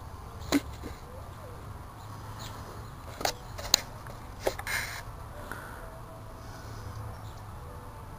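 Handheld camera being moved and handled: a few sharp knocks and clicks, the loudest about three and a half seconds in, over a steady low rumble.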